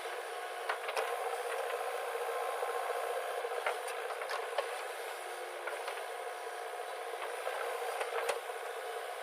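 Diesel engine of a backhoe or tractor running steadily, with a few sharp clanks, the loudest near the end.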